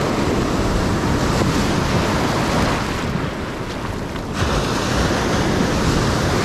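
Ocean surf washing and breaking over a shallow reef close by, with wind buffeting the microphone. The rush dips slightly and swells again about four seconds in as another wave comes through.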